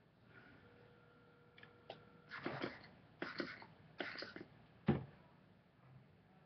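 Hands working through curly, conditioned hair, rustling and crackling in three short bursts, followed by one sharp click near the end.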